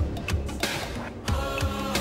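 Background music with held tones and a steady low beat.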